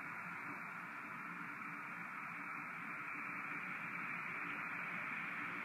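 Strong wind and rain making a steady hiss, gusting up to 35–45 mph.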